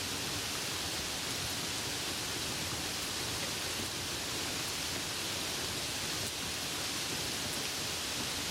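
Soft rain falling steadily: an even, unbroken hiss with no single drops or other sounds standing out.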